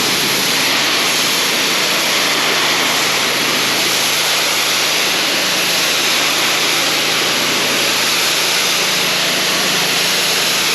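Gas-engine pressure washer running steadily, its high-pressure water jet hissing against the masonry wall being cleaned.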